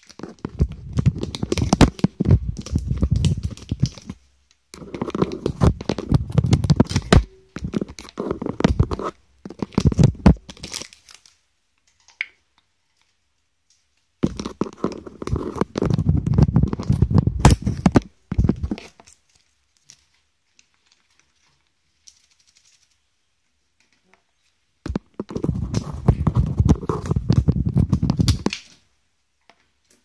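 An African grey parrot's beak picking and tearing at the tape that holds the phone to the wall, close to the microphone. The crinkling and ripping scrapes come in five bursts of two to five seconds each, with quiet gaps between them.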